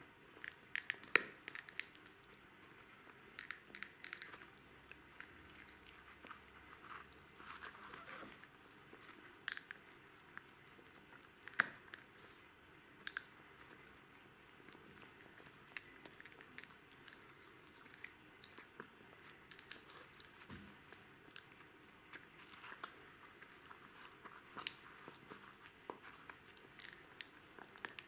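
Jack Russell terrier puppy gnawing on a chew stick: irregular crunching and clicking bites, the sharpest snaps about a second in and again near the middle.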